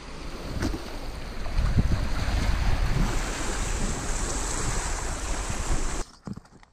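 Small waves washing and breaking over shoreline rocks, with wind buffeting the microphone. The sound cuts off suddenly about six seconds in.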